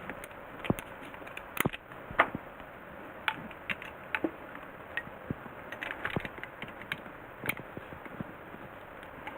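Irregular light clicks and knocks, about a dozen spread unevenly, over a steady low hiss; no drill motor is running.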